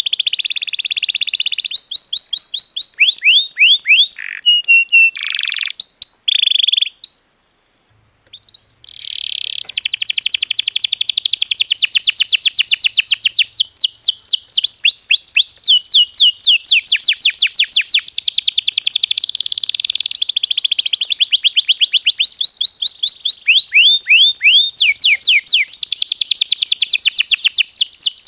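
Canary singing a long song of fast rolling trills and sweeping chirps. It breaks off briefly about seven seconds in, then runs on in a steady stream of rapid trills.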